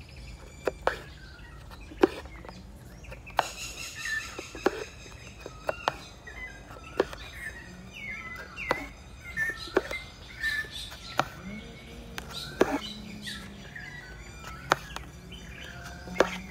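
Birds chirping in short calls, with scattered sharp clicks throughout.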